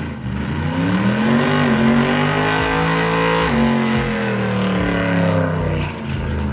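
Car engine revving: its pitch climbs about a second in, is held high for a couple of seconds, then drops and winds back down near the end.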